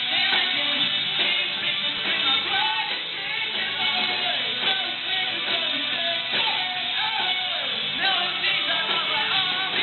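Rock music played loud and steady: guitar with a singing voice over it.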